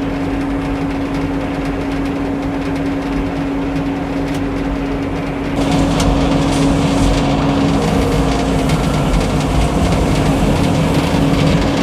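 Old Frick sawmill running: a steady machine hum at a constant pitch. About halfway through it grows louder, with added rattle and hiss.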